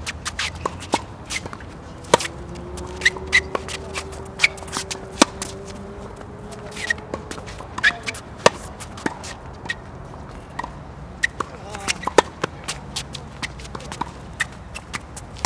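Tennis rally on an outdoor hard court: sharp pops of racket strokes and ball bounces at an irregular pace, with lighter clicks and squeaks between shots.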